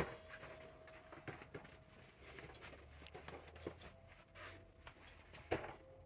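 Quiet room tone with scattered soft taps and knocks from someone walking and handling a phone between bookshelves. A sharper knock comes at the start and another about five and a half seconds in, over a faint steady hum.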